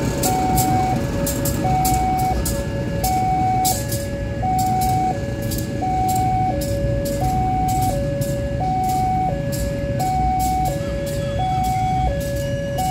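Railway level-crossing warning alarm sounding a repeating two-tone high-low signal, one high and one low note about every second and a half. Under it runs the low rumble of a diesel locomotive moving slowly on a shunting move, with many short sharp clicks.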